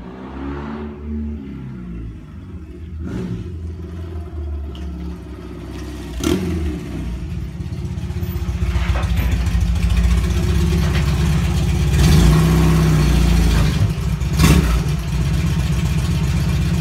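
BMW R100 flat-twin (boxer) engine with fairly open exhausts running, the even flat thrum of its 360-degree firing, with a few revs in the first couple of seconds. It grows louder as the bike comes closer and is loudest late on, with two sharp knocks along the way.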